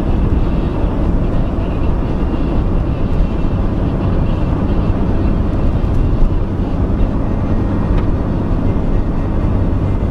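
Steady low rumble of a vehicle being driven, engine and road noise running evenly without changes in pace.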